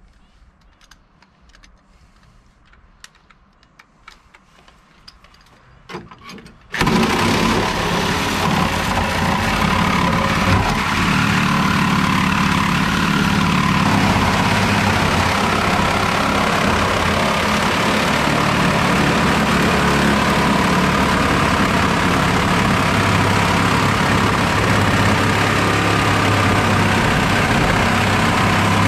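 Handheld electric angle grinder starting up about seven seconds in and then cutting steadily through the steel side wall of a school bus, a loud continuous grinding noise with an even motor whine. Before it starts there are only a few faint clicks and taps.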